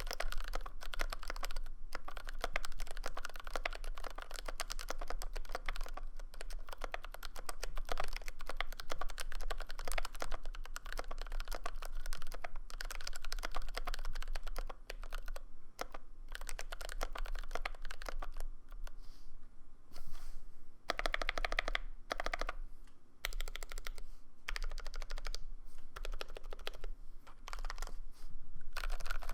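GMMK Pro mechanical keyboard being typed on quickly and continuously, with a few brief pauses. Its Krytox-lubed Blue Velvet tactile switches clack through an aluminum plate, with case and plate foam and Goat stabilizers.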